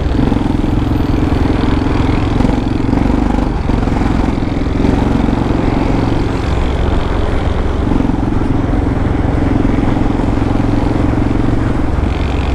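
Yamaha XT600E's single-cylinder four-stroke engine running through an old aftermarket Coyote exhaust while riding at a steady road speed. The engine note holds steady, easing off briefly a couple of times.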